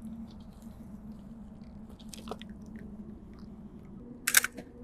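Footsteps and small crunches on a gravel shore while someone moves and crouches, over a steady low hum, with a sharp, loud click-crunch about four seconds in.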